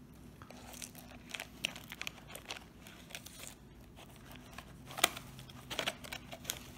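A table knife scraping around the edge of a microwaved frozen flatbread on its foil-faced cardboard cooking tray to free the stuck crust: light scraping and crinkling with scattered small clicks, the sharpest about five seconds in.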